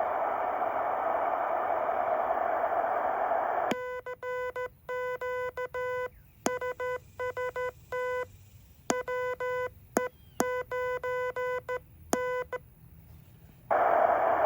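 Heathkit HW-8 transceiver: steady receiver hiss, then about nine seconds of Morse code keyed as a tone near 500 Hz, the hiss cut out while sending, with a few sharp clicks among the keying, before the hiss comes back.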